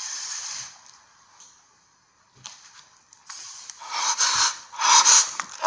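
Paper rustling as a thumb riffles through the pages of a thick booklet: a short hiss, a pause, then several rustling sweeps that get louder toward the end.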